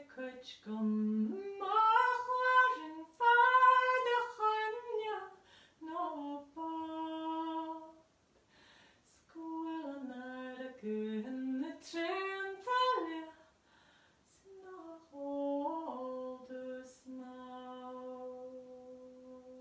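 A woman singing a traditional song solo and unaccompanied, in phrases with short pauses between them, closing on one long held note that fades away.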